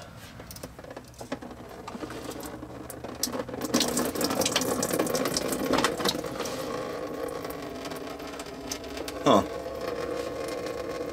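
A ratchet wrench clicks as it loosens a radiator drain plug, then engine coolant starts to run out of the drain in a steady stream from about four seconds in. A brief loud sound, falling in pitch, comes near the end.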